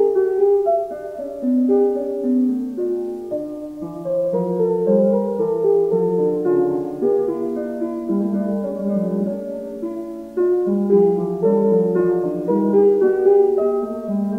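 Solo piano playing a piece in several parts, held chords over a moving bass line.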